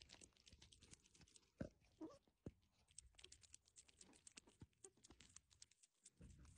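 Faint, irregular crackling and clicking of a kitten's fur and face rubbing against a phone's microphone, with a few sharper clicks among many small ones.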